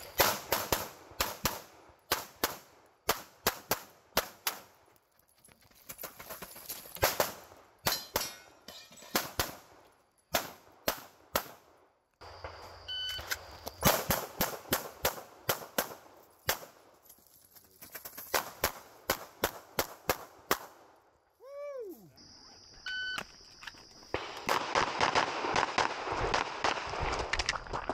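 Strings of rapid 9mm pistol shots from a Glock 17 Gen 5 fired in fast pairs and bursts, with short breaks between strings. The shots come densest near the end.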